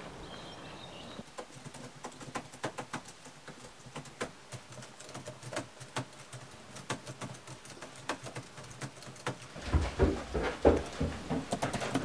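Laptop keyboard being typed on: rapid, irregular key clicks, several a second. Near the end a few louder, deeper thumps take over.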